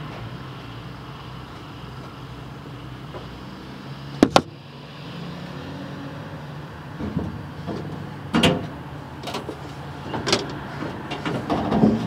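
A sharp double knock about four seconds in, then several more knocks and clatters in the second half, over a steady low hum.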